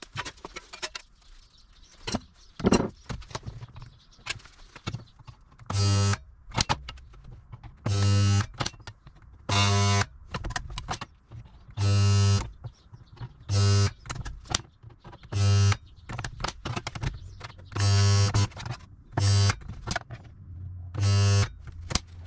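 A workshop tool buzzing in nine short bursts, each under a second and about two seconds apart, on a low steady pitch, with light clicks and scrapes between them.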